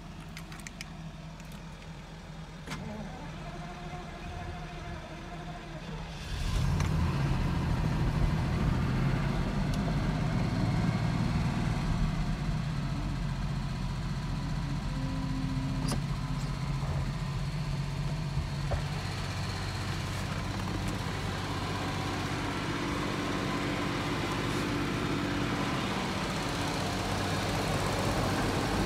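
Jaguar XJS 5.3-litre V12 engine started after standing unused for a long time, running on fresh fuel: it cranks for a few seconds and catches about six seconds in. It runs loudest for the first few seconds, then settles into a steady idle.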